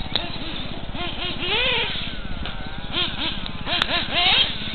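Radio-controlled car's motor buzzing around a dirt track, its pitch rising and falling again and again as the throttle is worked. A single sharp click near the end.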